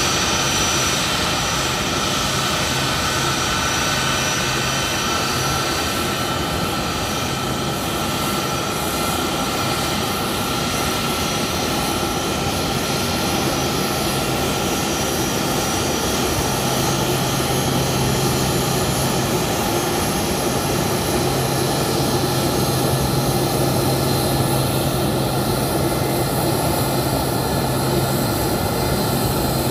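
Jet aircraft engines running steadily on the ground, a continuous drone with a low hum and higher steady tones and no rise or fall in pitch.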